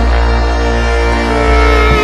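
Instrumental break in the band's song: held instrument notes over a steady bass line, with no singing.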